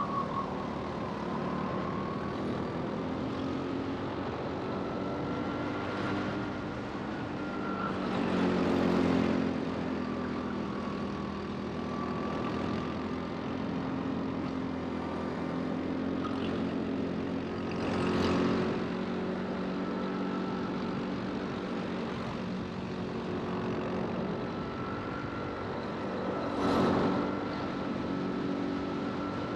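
Go-kart engine running at race pace, its pitch rising and falling with the throttle. It swells louder three times, about 9, 18 and 27 seconds in.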